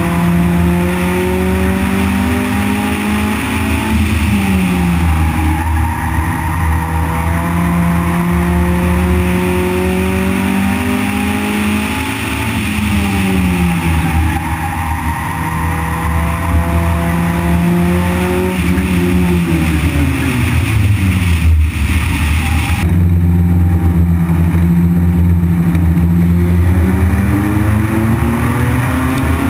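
Race car engine heard from inside the car while it laps a short oval. The engine note holds steady on the straights, drops sharply about three times as the car slows for the turns, then climbs again as it accelerates out.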